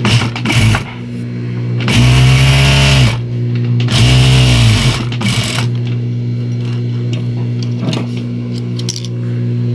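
Industrial single-needle lockstitch sewing machine sewing a test seam in lycra, with its hook timing just set back to cure skipped stitches. It runs in two fast bursts of about a second each, pitch rising as it speeds up and falling as it slows, with shorter runs near the start and just after the second burst, over a steady hum.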